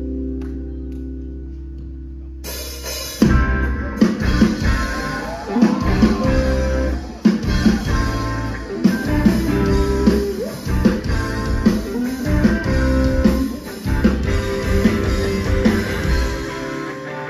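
Indie/emo rock band playing live, heard through the crowd: a held guitar chord fades, then drums and guitars come in together about three seconds in and play on. Near the end the drums and bass drop out, leaving a guitar ringing alone.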